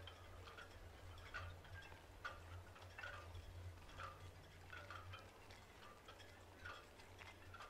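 Near silence: faint room tone with a low steady hum and soft ticks roughly once a second.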